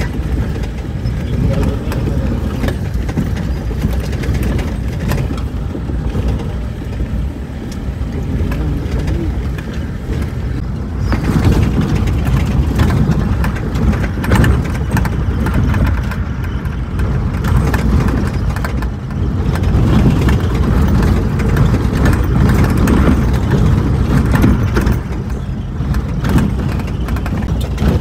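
A vehicle driving along a rough dirt road: a steady engine and road rumble, a step louder from about eleven seconds in.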